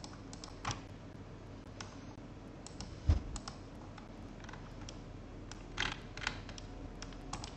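Scattered, irregular clicks of a computer keyboard and mouse, with one firmer knock about three seconds in.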